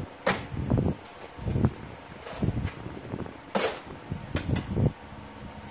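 Irregular handling noises on a workbench: scattered rustles, knocks and a few sharp clicks as things are moved about, over a steady low background hum.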